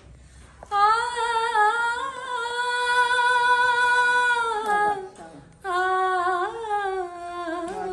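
A woman singing a ghazal unaccompanied, with no words: one long held note of about four seconds that slides down at its end, then, after a breath, a second phrase with quick ornamental turns in pitch.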